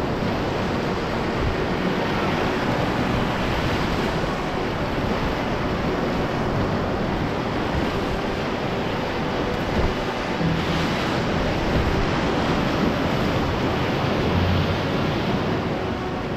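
Rushing whitewater of a river rapid, a steady dense wash of water noise, with some wind buffeting the microphone.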